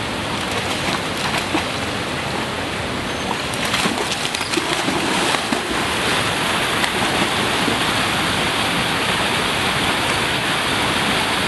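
Steady rush of a shallow rocky stream, with a burst of splashing a few seconds in as a dog leaps into the pool and starts swimming.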